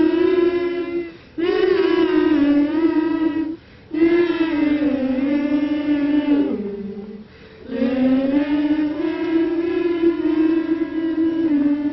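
Gospel choir singing a slow song of long held notes, in four phrases broken by short pauses for breath.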